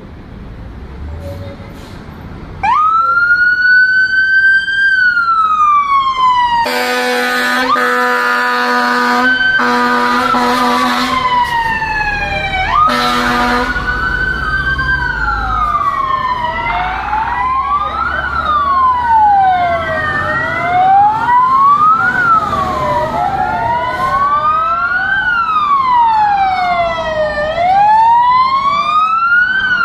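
Fire truck sirens starting up about three seconds in and wailing up and down, broken by a long, loud blast of a steady horn and a short second one. In the second half several trucks' sirens wail at once, out of step with each other.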